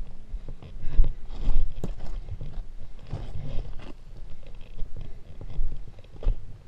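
Boots crunching and scuffing on loose gravel and rock in uneven steps, a person walking about on a rocky dirt trail.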